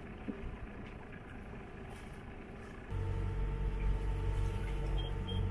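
Sailboat's engine running steadily: a faint low rumble at first, then about three seconds in a louder, even low drone with a hum.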